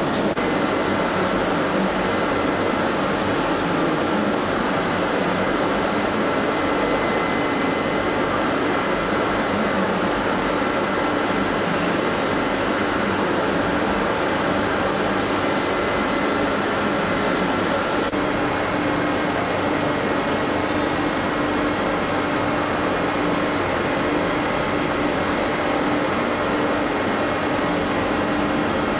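Steady mechanical hum and hiss of running industrial machinery, with a few faint constant tones on top.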